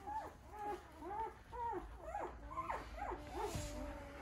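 Newborn wolfdog puppies crying: a quick run of short, high whimpering cries that rise and fall, several overlapping.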